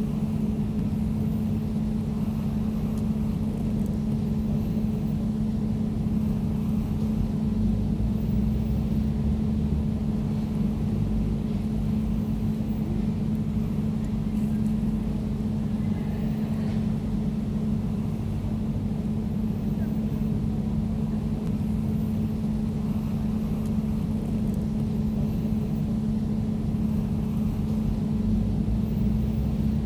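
Air conditioner running steadily: a constant hum with a low rumble underneath.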